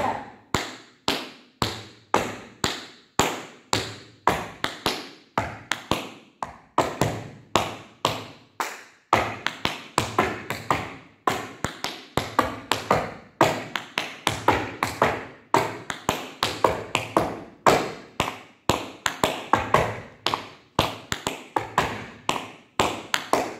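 Tap shoes' metal taps striking a wooden floor in quick rhythmic clusters of sharp clicks with short gaps between them. This is a tap combination of flaps and ball changes moving forward.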